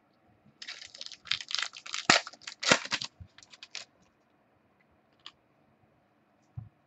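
Trading cards and their plastic packaging being handled: a run of rustling, scraping strokes for about three seconds, then a few faint clicks and a soft thump near the end.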